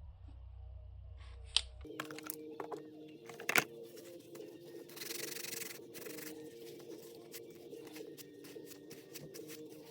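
Sharp clicks and knocks of leatherworking tools being handled, and a short rubbing scrape about five seconds in. Quiet background music starts about two seconds in.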